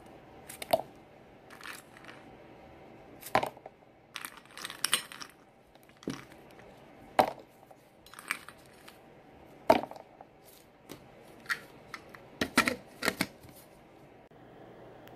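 Ice cubes dropped one at a time from tongs into a blender jar, each landing with a sharp clink and a short ring, every two to three seconds. Near the end comes a quick run of several clinks and knocks.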